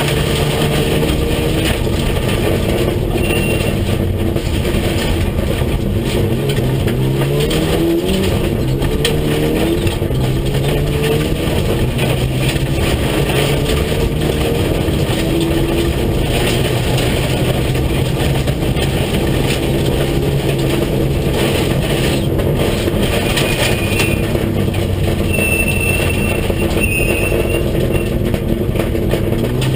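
Rally car's engine heard from inside the cabin, under hard load on a gravel stage; the revs climb steeply about a quarter of the way in, then settle into a steady pull.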